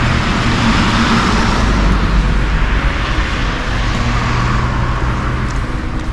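A car driving on wet paving, tyre hiss swelling and fading over the first couple of seconds, with a second swell about four seconds in, over a steady low traffic rumble.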